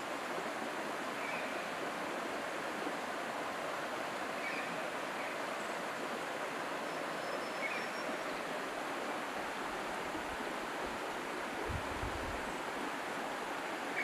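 Running water in a creek in the valley below, heard from a distance as a steady, even rush. A few faint short high chirps sound over it, and a brief low rumble comes near the end.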